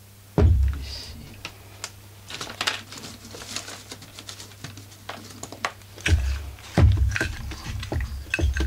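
A Husqvarna 44 chainsaw body being handled and turned over on a workbench: scattered clicks and light rattles of its plastic and metal parts, with dull thumps about half a second in and again around six to seven seconds in.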